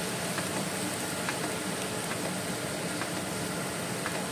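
Chopped fenugreek leaves frying in a pan with a steady sizzle while they are stirred in, with a few faint clicks of the spoon against the pan about once a second.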